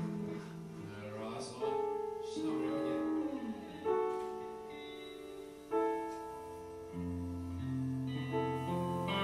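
Electric guitar and piano playing slow, sustained chords, with a new chord struck every couple of seconds.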